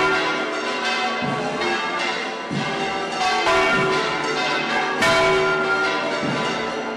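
Church bells ringing in a full peal: several bells struck one after another, their tones hanging on and overlapping, with a fresh loud strike every second or two.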